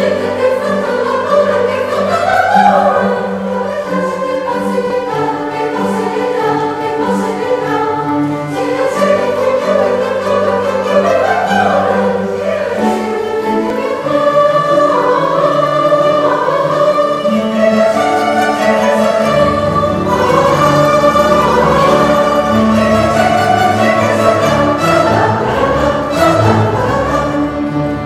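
A mixed choir singing classical music, accompanied by a mandolin orchestra of mandolins, mandolas and guitars.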